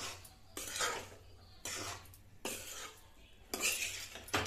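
A steel spoon scrapes and stirs chunks of amla (Indian gooseberry) pickle around a black kadhai to coat them in the fried spice mix. The strokes come in a rough rhythm, about one scrape a second.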